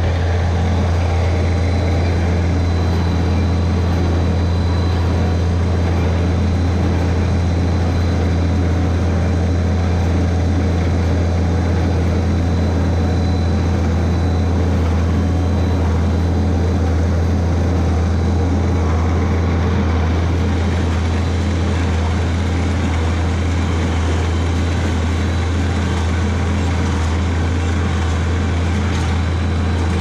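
Tractor engine running steadily under load while pulling a small square baler through grass hay, a constant low drone with the baler's machinery running along with it.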